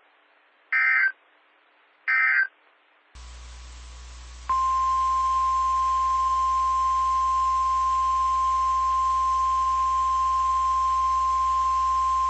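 Emergency Alert System data bursts: two short, raspy squawks about a second and a half apart, end-of-message bursts closing the previous warning. About four and a half seconds in, a NOAA Weather Radio 1050 Hz warning alarm tone starts, one steady pure tone held without a break, which heralds the next warning.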